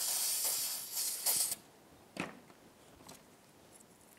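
Aerosol cleaner spraying into a carburetor float bowl: two short hissing bursts lasting about a second and a half in all, then a few faint clicks of handling.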